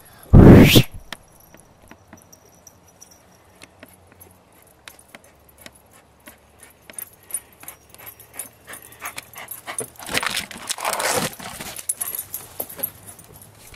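A dog panting and whimpering softly, with light scattered clicks. There is a loud, brief rush of noise about half a second in and a louder breathy stretch near the end.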